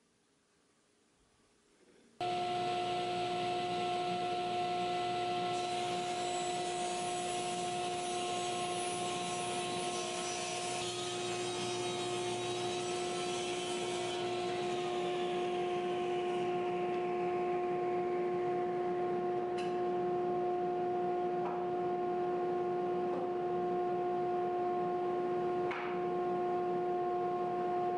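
Table saw starting to run after a moment of near silence, with a steady hum and hiss while corners are ripped off oak leg blanks to make them octagonal. The cutting noise is heaviest in the first half, then eases as the saw runs on. A couple of light knocks come near the end.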